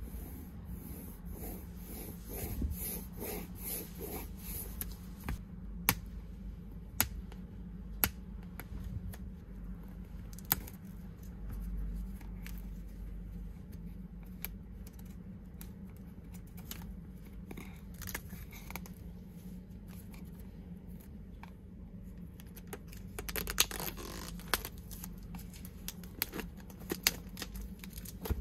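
Fingers and long nails handling a shrink-wrapped camera box: a few sharp nail clicks against the plastic wrap, then a burst of plastic crinkling and scratching near the end as the wrap is picked at, with a steady low hum underneath.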